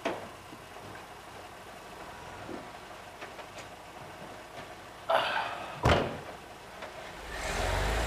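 A taxi's car door shuts with a sharp knock about six seconds in, just after a short rustle as someone climbs out. A low engine hum then swells near the end.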